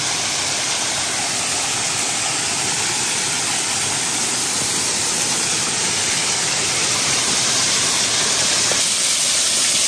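Steady rush of water pouring down a small waterfall on a mountain stream, growing slightly louder near the end.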